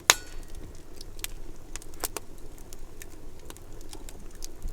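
Wood fire crackling in a fire bowl, with irregular sharp pops and snaps.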